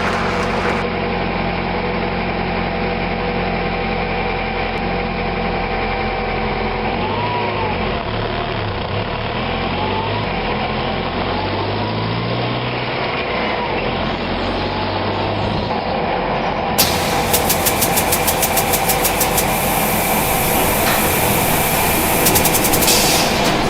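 Heavy truck engine running steadily, rising and falling in pitch a few times midway as it revs. About two-thirds of the way through, a fast rhythmic clatter joins in.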